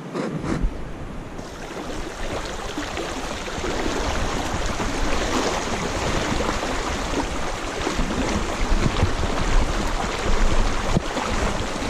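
Fast river current rushing steadily over stones, coming up over the first second or so and holding as a dense, even rush.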